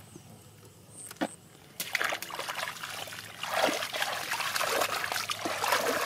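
Hands splashing and sloshing through shallow muddy water, groping in the mud for catfish. It starts about two seconds in, after a quieter start with a single short click, and the splashing keeps coming in quick, irregular bursts.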